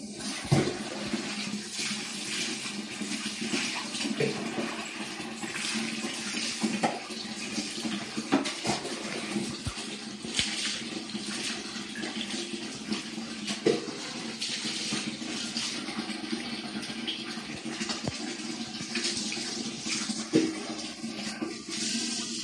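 Tap water running steadily into a plastic bucket, while scoopfuls of water are poured over a wet dog and splash onto a tiled floor, with sharp splashes and knocks every second or two.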